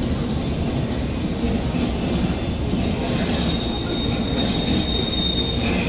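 Intermodal freight train rolling past with a steady rumble of wheels on rail. A thin, high wheel squeal rises out of it from about three seconds in until near the end.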